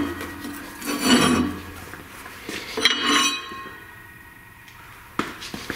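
Cut pieces of metal plate clanking and ringing as they are handled and set down: three ringing clangs in the first three seconds and a small click near the end. Under them, the low hum of the band saw stops about two seconds in.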